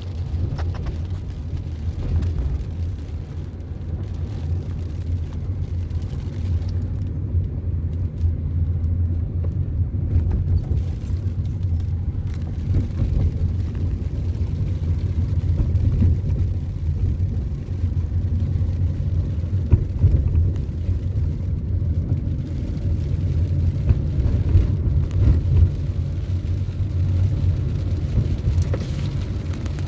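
A car driving, heard as a steady low rumble of engine and road noise.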